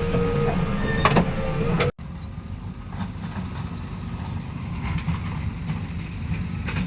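Diesel engine of a backhoe loader running, at first with a steady whine and a few sharp metallic knocks. After an abrupt cut about two seconds in, a quieter engine keeps running steadily.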